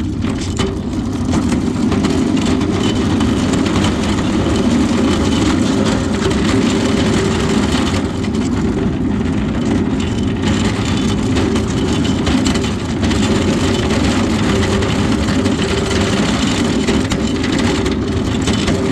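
Steady vehicle rumble heard from inside: engine and road noise, strongest in the low end, with no clear changes.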